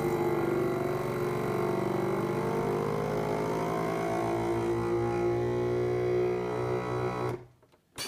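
FoodSaver V2490 vacuum sealer's pump motor running steadily, then cutting off by itself near the end. It shuts off because it has reached full vacuum, now that the washed, still-damp foam lid gaskets are sealing.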